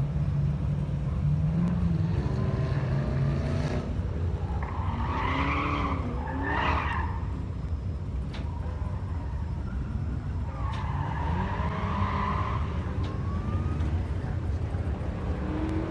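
A car's LS V8 running hard, with tires squealing in two long spells, about five and eleven seconds in.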